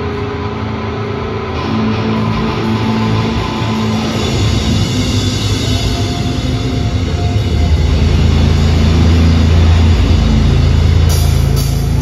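Metalcore band playing live through a large PA: a sustained intro of held tones that builds, with heavy low bass coming in about two-thirds of the way through and a couple of big full-band hits near the end.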